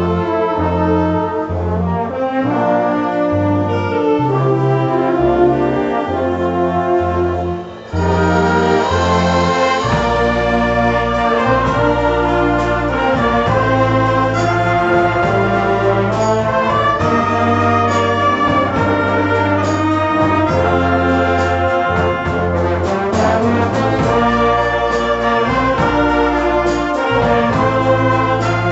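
Youth wind band playing: brass, flutes and saxophones together over a low bass line. The music drops away for a moment about a quarter of the way in, then comes back with a fuller, sustained bass.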